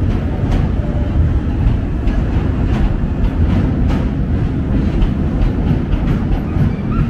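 A train crossing a steel truss railway bridge overhead, heard from beneath as a deep, steady rumble with a few sharp clicks of wheels over the rail joints.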